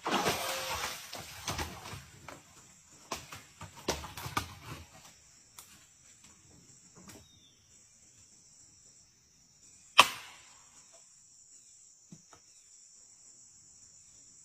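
Insects chirring steadily in a high band, over irregular rustling and clicks during the first five seconds and a single sharp knock about ten seconds in.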